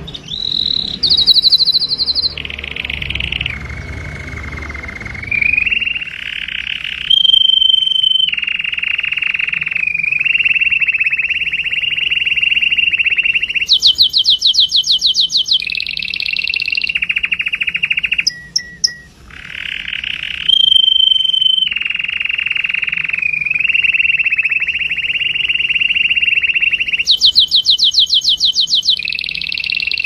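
Red canary singing its courtship song: a continuous string of rapid trills and rolls, each phrase held a second or two before switching to another pitch, with a brief break a little past halfway.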